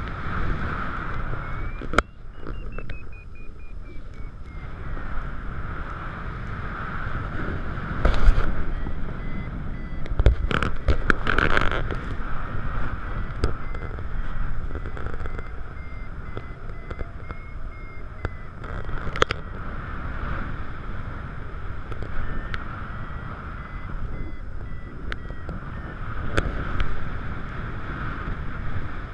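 Airflow rushing over the camera's microphone in paragliding flight, with a faint, quick beeping tone that climbs in pitch early on and then slides back down, typical of a paragliding variometer signalling lift. A few sharp knocks come through, the strongest a little past a third of the way in.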